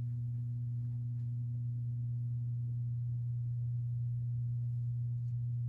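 Steady low electrical hum with a fainter overtone above it, from the Hunter ceiling fan's motor running.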